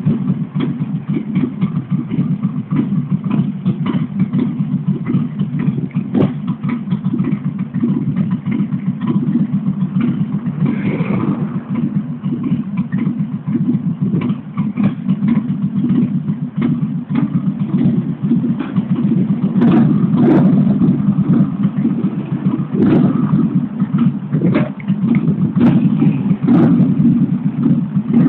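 Harley-Davidson V-twin motorcycle engine idling with an uneven, pulsing beat, blipped up a few times in the last third.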